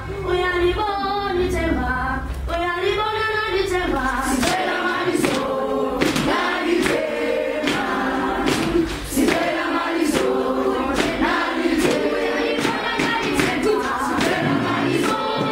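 A group of children singing a welcome song together in unison, unaccompanied. From about four seconds in, sharp beats keep time under the singing, a little more than one a second.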